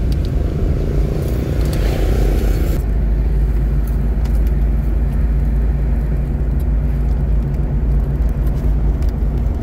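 Steady low rumble of a moving car's engine and tyres heard from inside the cabin, with the character of the noise changing abruptly about three seconds in.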